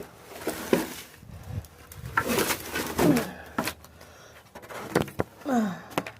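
Yard debris being picked up and moved onto a pile: a series of knocks and scrapes, with a few short falling creaks or groans.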